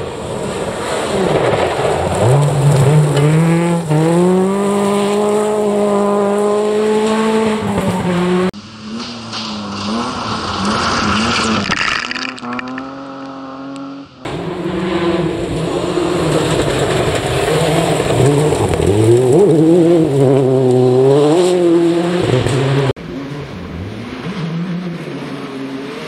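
Rally cars driven hard on a gravel stage: engines rising in pitch through the gears over the hiss of tyres on loose gravel. The sound cuts abruptly between cars three times.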